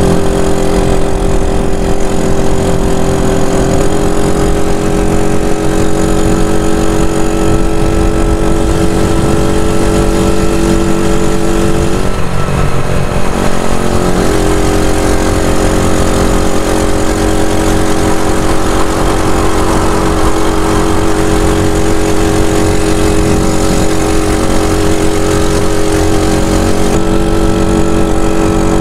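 Freshly overhauled Yamaha SRX engine running at a steady cruising speed, over a constant rush of wind and road noise. The engine note dips briefly about twelve seconds in, then picks up again and holds steady.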